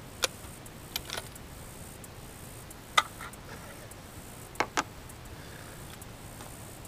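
Sharp metallic clicks and clacks from a Tikka T3x Lite bolt-action rifle being handled between shots: a handful of separate clicks, the loudest about three seconds in, then two close together.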